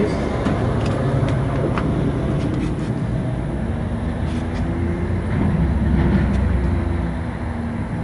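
A steady, low engine drone, like a vehicle engine running, swelling slightly about six seconds in, with a few faint clicks.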